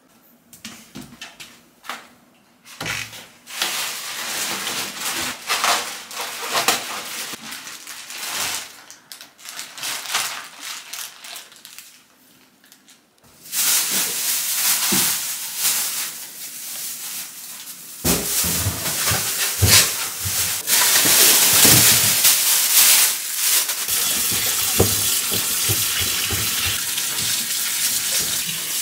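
Hands working salted napa cabbage leaves, with irregular crinkling and squishing. From about halfway in, a kitchen tap runs with a few knocks in the sink, settling into a steady stream of water near the end as radishes are scrubbed under it.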